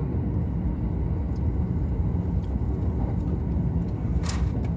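Electric commuter train running at speed, heard from the upper deck of a double-deck Green car: a steady low rumble of wheels on the rails. A short sharp noise cuts through about four seconds in.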